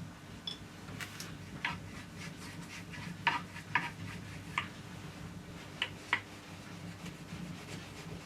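Scattered light clicks and taps of small hard objects being handled, the loudest two a little past three seconds in and near four seconds, over a steady low hum.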